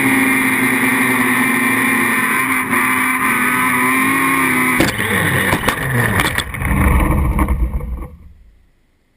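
HFrame FPV quadcopter's motors and propellers whining steadily, then about five seconds in a sharp impact as it crashes, followed by a few seconds of knocks and uneven, shifting motor noise that dies away near the end.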